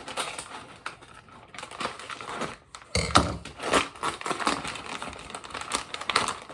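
Packaging being handled and opened by hand: irregular crinkling and rustling with small clicks, louder from about three seconds in.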